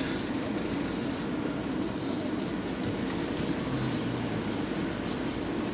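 Steady hum of a car's engine and tyres heard from inside the cabin as the car rolls slowly.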